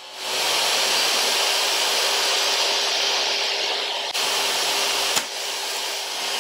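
Portable table saw running freely, a steady motor whine and rushing air of the spinning blade that comes up within the first moment. There is a brief break about four seconds in and a sharp click just after five seconds.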